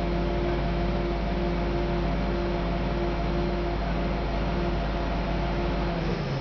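Engine of the boat-lifting rig running steadily, a constant droning hum with a steady tone in it; the tone drops and changes just before the end.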